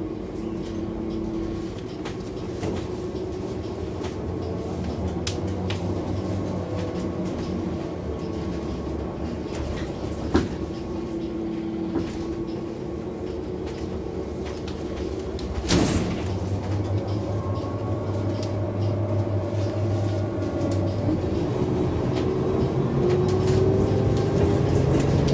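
Iveco Urbanway 12 city bus's diesel engine idling steadily, with a short click about ten seconds in and a sharp knock a little under two-thirds through. Near the end the engine note rises and grows louder.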